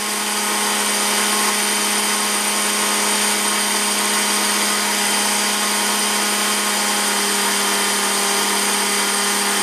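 Blendtec blender motor running steadily on high, its blades grinding dry wheat grain into flour in an Alterna jar.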